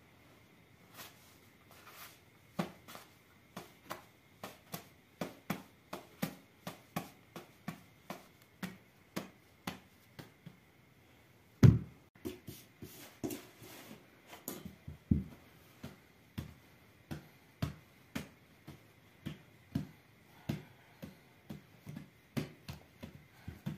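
Hands patting and slapping bread dough flat, a run of dull pats about twice a second, with a louder thump about halfway through.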